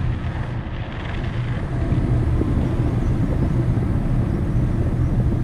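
Wind rushing over the microphone of a camera on a paraglider in flight: a steady low rumble that gets louder about two seconds in.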